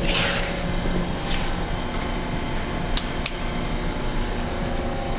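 Steady mechanical hum, a low drone with a few steady tones over a noisy bed. A brief rustle comes right at the start, and two light clicks come about three seconds in.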